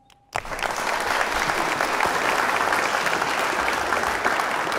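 Audience applauding: many people clapping at once. It starts suddenly a moment in and holds steady.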